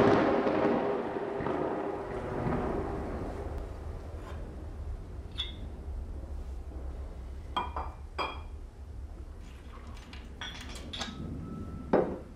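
A deep boom dying away over the first few seconds, then scattered sharp clinks of glass as a glass decanter and a whiskey tumbler are handled for a pour, ending in a heavier knock of glass near the end.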